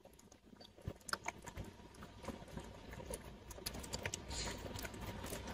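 A cat licking a lickable paste treat from a squeeze tube and smacking its mouth: faint, irregular small clicks and smacks that start about a second in.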